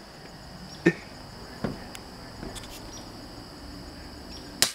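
Daisy Red Ryder lever-action BB gun fired once near the end, a sharp snap, with two fainter clicks about a second and a second and a half in. A steady, high insect buzz lies underneath.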